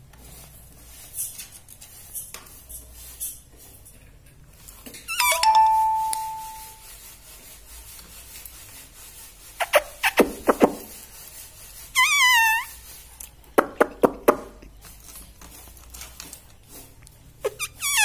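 Rose-ringed parakeets giving a few separate squeaky calls: one about five seconds in that settles into a short held whistle, a wavering trill about twelve seconds in, and another call near the end, with a handful of sharp clicks between them.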